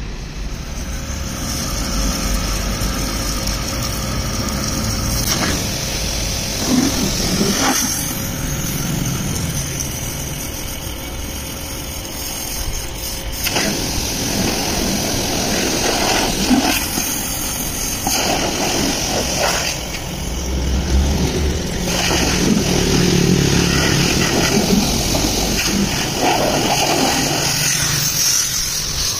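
Pressure washer running, its water jet spraying a steady hiss onto removed engine parts: the cylinder block, oil pan and intake manifold.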